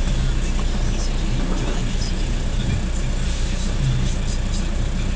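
Steady low engine rumble of a Faun Variopress rear-loader garbage truck idling while stopped, heard from inside a car behind it.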